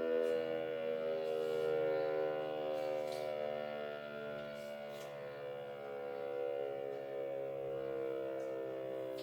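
Civil defense siren sounding a steady, unbroken tone with many overtones, the loudness wavering slightly.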